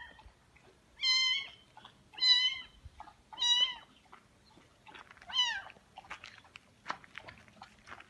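A very young kitten mewing: four high-pitched mews spread over the first five or six seconds, the last one sliding down in pitch. Faint light ticks and rustles follow.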